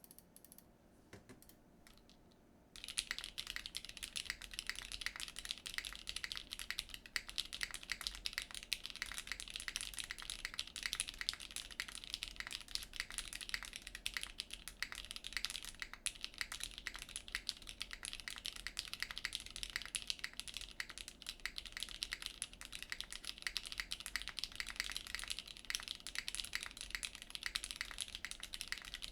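Steady fast typing on an ai03 Polaris mechanical keyboard with lubed Cherry MX2A Black linear switches on an FR4 half-plate, with no foam and GMK keycaps. A few stray key presses come first, and the continuous typing starts about three seconds in.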